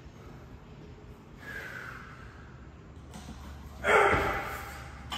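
A man breathing hard, winded from a rowing and heavy barbell snatch workout: a short breath about a second and a half in, then a loud, forceful exhale about four seconds in that fades over a second.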